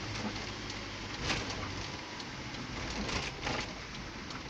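Inside a moving car on a rain-soaked road: a steady hiss of tyres on wet tarmac and rain, over a low engine hum. The windscreen wipers sweep across the glass about every two seconds, each pass a short swish.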